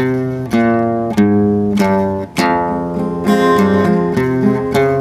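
Acoustic guitar playing a song's introduction solo: chords struck about every half second and left to ring, with quicker notes in the second half.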